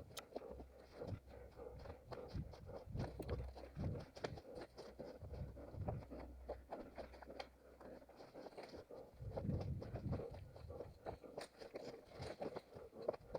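An orienteering runner's footsteps crunching and scraping over the forest floor: a quick, uneven run of short crunches and snaps.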